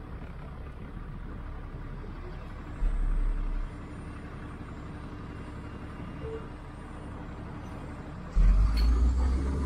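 City bus running, heard from inside: a steady low rumble of engine and road, with a brief low surge about three seconds in and the rumble stepping up sharply to much louder near the end.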